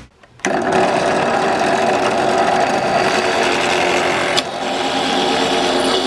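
A small motor-driven power tool running steadily, starting half a second in, with a brief click and momentary dip about four and a half seconds in.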